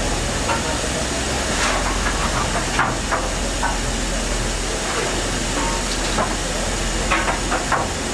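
Steady hiss of escaping steam from an LMS Stanier Black 5 4-6-0 steam locomotive standing at the platform, with a few light clanks and faint voices.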